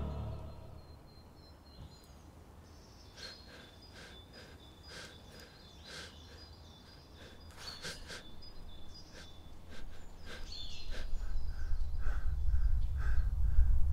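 Quiet pine-woodland ambience: scattered sharp snaps and clicks with short high bird chirps. A low rumble then swells steadily louder over the last few seconds.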